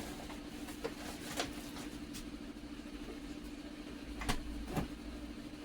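A few light knocks and clacks from kitchen items being handled, over a steady hum. The two knocks near the end are the loudest.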